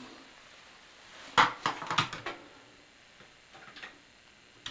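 A few light knocks and clicks of things being handled: a sharp one about a second and a half in, a quick cluster around two seconds, then fainter clicks near the end.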